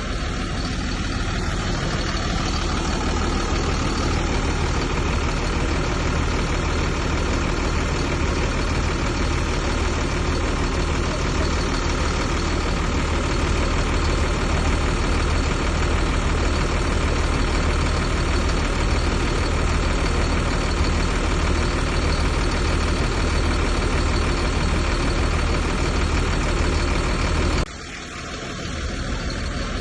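Heavy diesel engine of earthmoving machinery running steadily, with a deep low hum. Near the end the sound drops off abruptly, then swells back.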